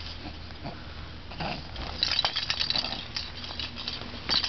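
A baby's small grunting and mouthing noises, with the beads inside a clear plastic rattle ball clicking as he handles and mouths it; the clicks come in a cluster from about two seconds in and again near the end.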